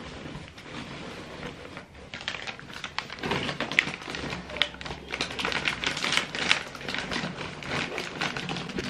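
Rustling and crinkling of baby items and their plastic wrapping being handled and packed into a quilted fabric bag: a quick, irregular run of small crackles and clicks that grows busier about two seconds in.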